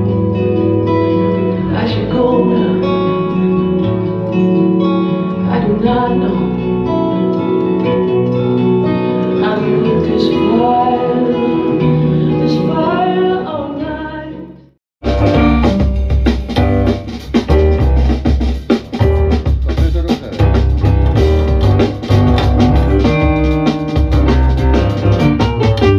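Recorded music playing over hi-fi loudspeakers. A melodic piece with gliding lines fades out about fifteen seconds in, and a different, rhythmic track with heavy bass and percussion starts abruptly.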